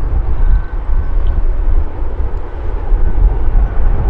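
Wind buffeting the microphone in heavy gusts, over the steady jet-engine noise of an Airbus A320 at takeoff power on its takeoff roll.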